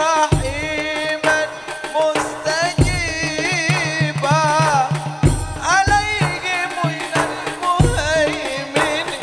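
Live Arabic sholawat: a man sings a richly ornamented devotional melody over a held tone, with a percussion group striking a deep drum about every two and a half seconds.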